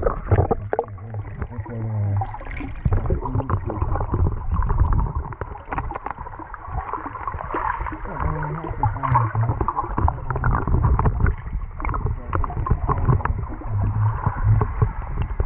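Muffled splashing and bubbling water around a swimmer, picked up by a camera in its waterproof housing on a snorkel mask, with irregular knocks and crackles and a low rumble.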